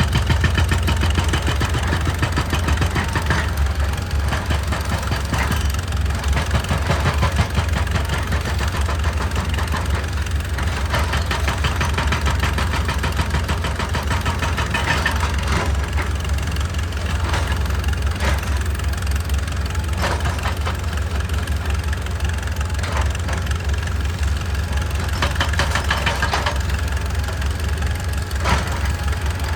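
Excavator's diesel engine running steadily, with scattered clanks and scrapes of the machine working on rock.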